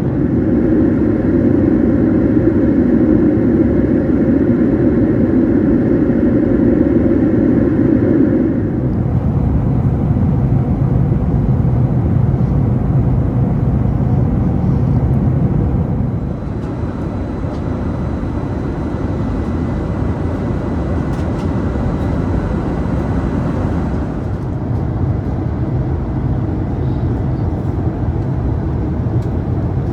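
Steady engine and air noise inside an Airbus A380 cabin, a constant roar with no distinct events. It drops a step in level about 8 seconds in and again about 16 seconds in.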